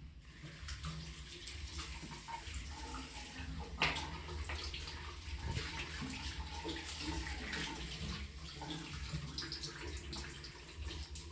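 Water running from a tap and splashing as a face is washed at a basin, with a brief knock about four seconds in.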